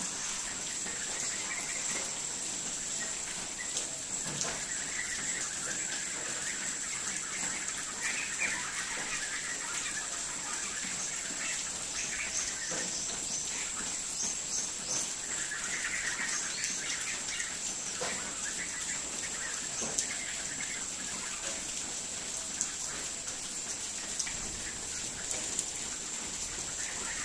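Birds calling and chirping on and off over a steady high-pitched background drone, with a few sharp clicks.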